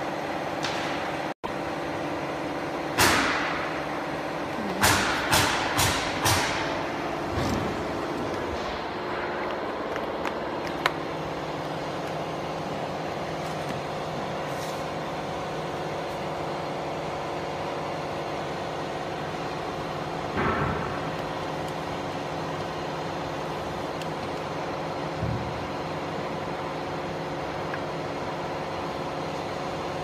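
Steady machine hum with several fixed tones from a powered-on fiber laser marking machine, broken by a quick run of sharp knocks about three to six seconds in and a few single knocks later.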